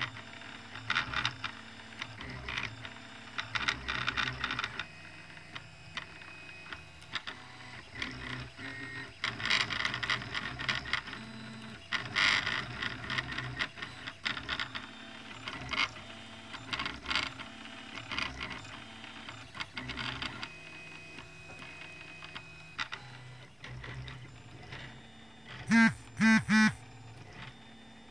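RepRap-style 3D printer at work: its stepper motors whine and buzz in short runs that change pitch as the print head and bed move, over the steady hum of the extruder fan. Near the end, three short loud chirps with sliding pitch stand out above it.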